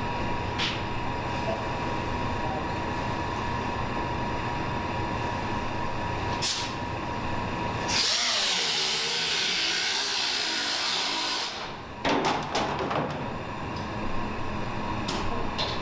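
High-speed power cutting tool running with a steady whine as it cuts through the Camaro's quarter-panel sheet metal. About eight seconds in, it turns into a louder, hissier grinding for a few seconds, then stops, and a few sharp knocks follow.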